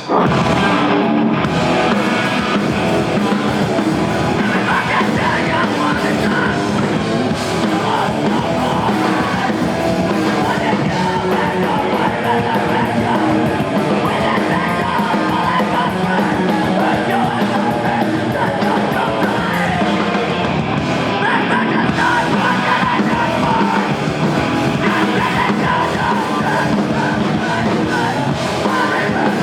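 Live rock band playing a loud, fast, heavy song, with the full band coming in at once and yelled vocals over guitars and drums.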